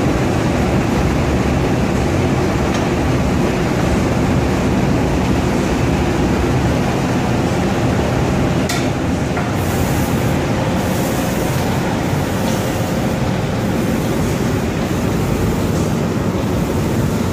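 Automatic paint spraying machine running with its roller conveyor: a loud, steady mechanical rumble and hiss, with one sharp click about nine seconds in.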